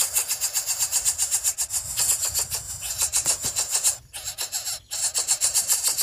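Coucal nestlings begging while being fed a snake: a harsh rasping call pulsed rapidly at several a second, breaking off briefly about four seconds in and again just before five seconds.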